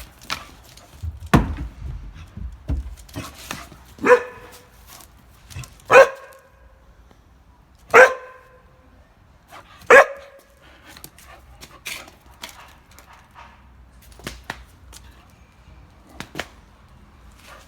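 A dog barking four times, evenly about two seconds apart: agitated barks of a dog riled up by play. A heavy thump comes shortly before the barks, with scattered knocks and rustles around them.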